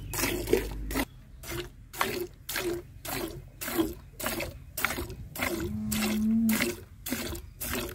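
A cow being milked by hand: jets of milk squirt into a pail in a steady rhythm, about two squirts a second.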